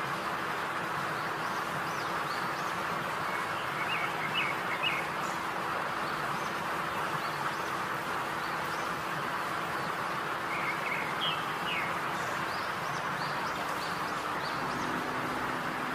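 Garlic sauce sizzling steadily in a wok over low heat as it is stirred and thickens. A bird chirps in two short bursts, around four and eleven seconds in.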